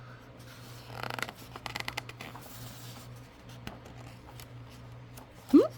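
Paper rustling as a picture-book page is handled and turned, about a second in. Near the end comes a short, loud vocal sound that rises in pitch.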